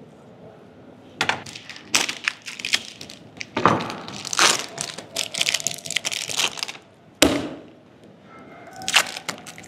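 Plastic wrapping on processed cheese slices crinkling and tearing in irregular bursts as the packet is opened and the slices are peeled out, with a single thump about seven seconds in.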